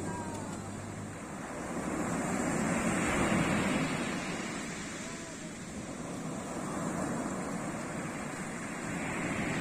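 Sea surf washing onto a beach: a steady rush of breaking waves that swells loudest about three seconds in and builds again near the end.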